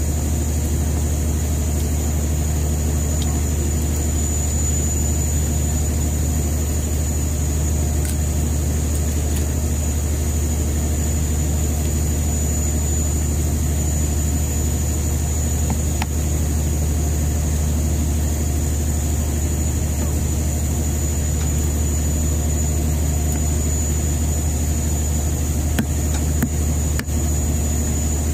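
A fishing boat's engine running steadily, a loud low drone that doesn't change.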